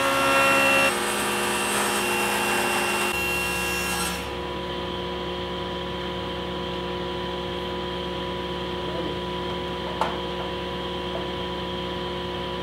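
Table saw cutting through a hardboard panel, a loud ripping noise for the first four seconds. The noise then drops to the steady hum of the saw and shop machinery running between cuts. There is one sharp click near the end.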